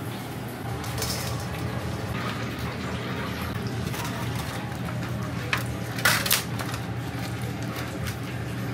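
Fried chicken and a clear plastic bento box being handled on a stainless-steel counter, with light clicks and a couple of sharp plastic clacks about five and a half to six seconds in, over a steady kitchen hum.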